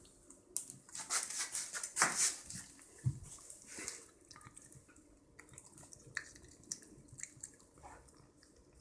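A cat eating juicy melon: wet smacking and clicking from its chewing and licking. The sounds come thick and fast for a few seconds, then turn to sparse clicks.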